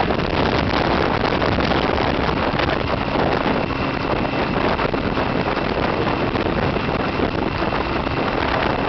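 Motorcycle riding at a steady cruising speed: wind rushing over the bike-mounted camera's microphone with the engine running underneath, a constant steady noise.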